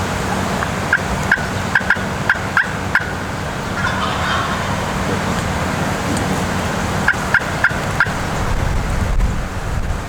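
Wild turkey calls: a series of short yelps, seven in the first three seconds and four more between seven and eight seconds in, with a gobble about four seconds in, over steady wind noise.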